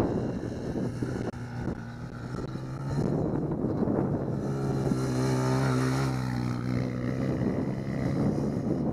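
Quad ATV engine running, its steady drone strongest in the second half, with wind noise on the microphone earlier on.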